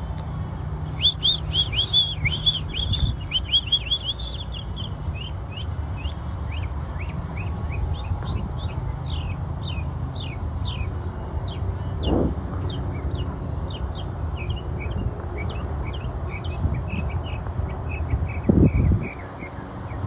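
Northern mockingbird singing. It opens with a fast run of loud, arching chirps over the first few seconds, then keeps up a long series of quick down-slurred notes, a few a second. Underneath runs a low background rumble, with a couple of low thumps later on.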